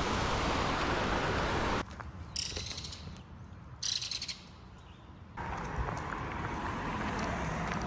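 Steady rush of stream water that breaks off abruptly, leaving a quieter stretch where a bird sings two short high chirping phrases; then the rush of water comes back.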